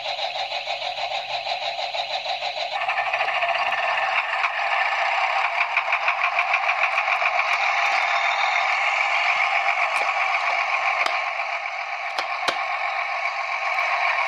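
Toy John Deere tractor's electronic engine sound from its small built-in speaker: a recorded tractor engine running with a fast pulsing beat, tinny and without any low end. The sound changes to a different engine sample about three seconds in. A few sharp clicks from handling the plastic toy come in the second half.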